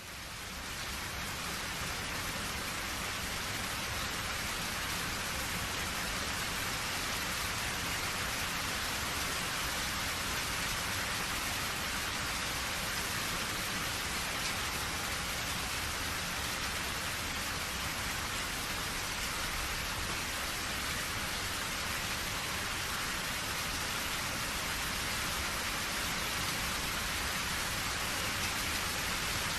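Steady rain falling on a surface, an even hiss of many drops, fading in over the first second or so.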